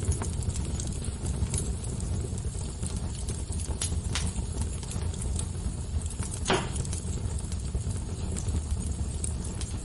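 Wood fire burning, with a steady low rumble of flames and scattered sharp crackles and pops, the loudest pop about six and a half seconds in.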